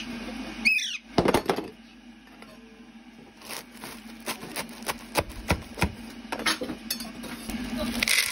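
Kitchen handling of a plastic colander and a bag of frozen peas: a short high squeak about a second in, a few loud knocks, then scattered sharp clicks, with a rustle near the end.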